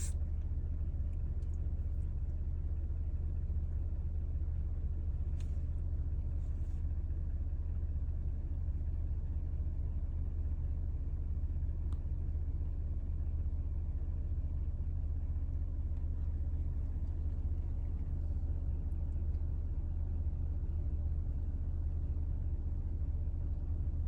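A steady low rumble at an even level, with a few faint clicks about five and a half, six and a half and twelve seconds in.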